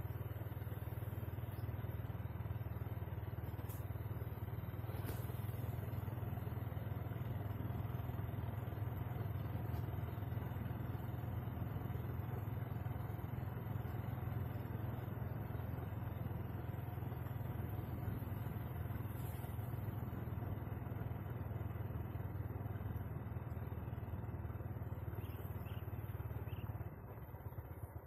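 Steady low drone of a vehicle engine under way, easing slightly about a second before the end.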